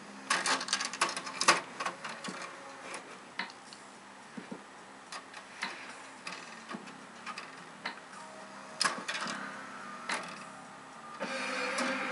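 A cat's paw tapping and knocking at a DVD player's plastic disc tray: a quick flurry of clicks, then scattered single taps. Near the end the tray's motor runs with a steady mechanical whir as the tray moves in or out.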